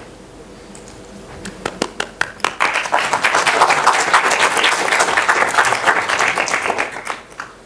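Audience applauding: a few scattered claps about a second and a half in, quickly building into full applause that dies away near the end.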